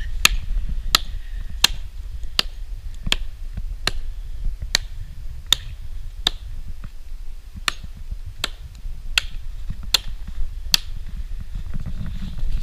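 Hatchet chopping into a fallen tree trunk: a steady series of sharp strikes into the wood, about one every three-quarters of a second, with one short pause about halfway, over a low rumble.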